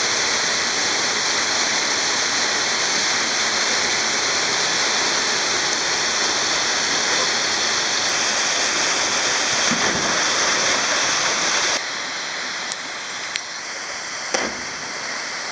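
Waterfall rushing steadily, heard close under the falling water. About twelve seconds in it drops suddenly to the quieter rush of a waterfall pouring into a pool, with a couple of faint knocks.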